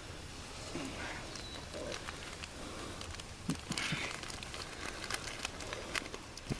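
Wood fire crackling in a steel drum fire pit, with sharp pops scattered irregularly throughout and the loudest ones a little past the middle and near the end.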